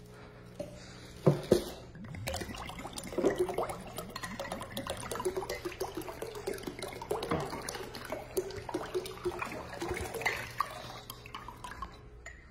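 Running water, splashing steadily for most of the stretch, after two sharp knocks about a second and a half in.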